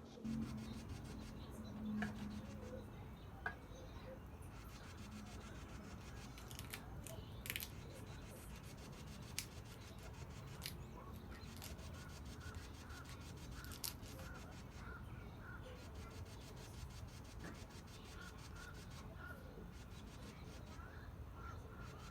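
Quiet food-preparation handling sounds: scattered light ticks and clicks with soft rubbing, as ingredients are handled and rolled by hand. A faint run of short repeated high chirps comes in over the second half.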